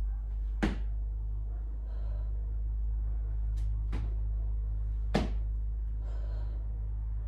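A few sharp taps of hands and feet landing on an exercise mat over tiles during squat-to-plank moves, irregularly spaced, two louder than the rest, over a steady low rumble.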